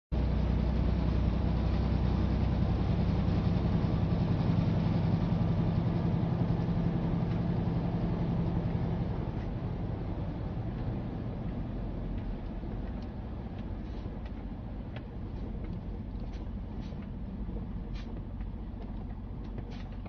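Inside a car driving through a violent windstorm: a steady, loud rumble of wind and road noise that eases after about nine seconds as the car slows, then scattered sharp ticks on the car.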